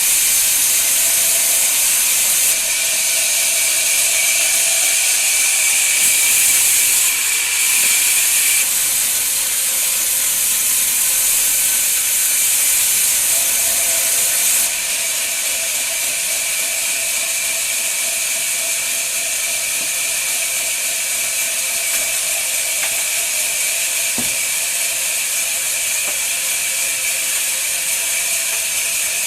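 Woodworking machine cutting wood: a steady, high hissing noise that changes level abruptly a few times.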